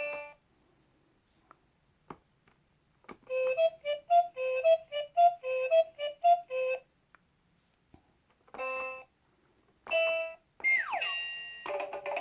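Laugh & Learn electronic toy laptop playing its built-in synthesized sounds: a short beep, a few faint clicks, then a quick tune of short notes hopping between two pitches. Two more single beeps follow, then a falling sound effect and a run of rapid notes near the end.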